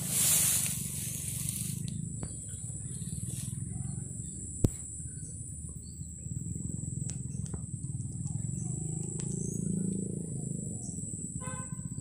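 Outdoor ambience: a steady low rumble on the microphone under a thin, steady high-pitched whine, with scattered faint clicks and chirps, one sharp click about four and a half seconds in, and a brief call near the end.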